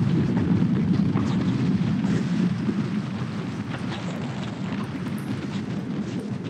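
Motorcycle riding in the rain: wind rushing over the microphone as a loud, steady low rumble.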